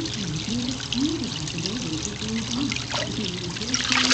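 Water sloshing and trickling in a shallow plastic kiddie pool as a wheaten terrier puppy moves about in it. A small splash comes about three seconds in, and louder splashing near the end as the dog gets to its feet in the water.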